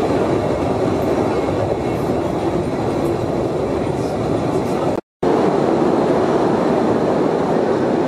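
Electric cave train running along its track, heard from aboard an open carriage: a steady, loud rumble of wheels and carriages. It cuts out for a moment about five seconds in.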